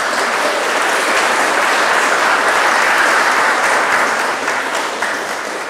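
A crowd of guests applauding, loud and sustained, tapering off near the end.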